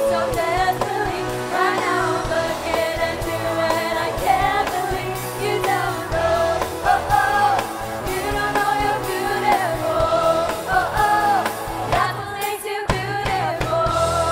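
Pop song with a woman singing the lead over bass and drums; the backing drops out briefly near the end.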